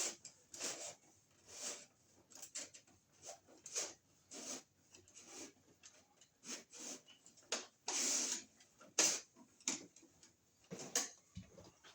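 Irregular clicks, scrapes and rustles of hands working electrical wires and plastic raceway, with a longer scraping rustle about eight seconds in and a sharp click just after.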